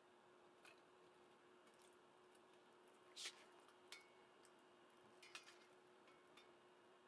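Near silence with a faint steady hum, broken by a few faint clicks and rustles as a 3D printer's mainboard and its wiring are handled; the clearest click comes about three seconds in.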